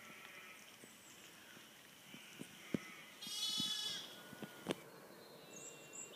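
A sheep bleats once, a single call lasting under a second, about three seconds in. Two sharp clicks come a second before and after it.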